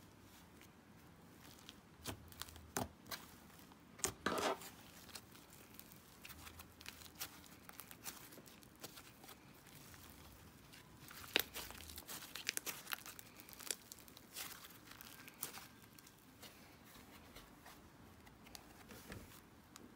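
Thick green slime being stretched and squeezed by hand: soft tearing and crackling with irregular small clicks and pops. The loudest bursts come about four seconds in and again around eleven to thirteen seconds in.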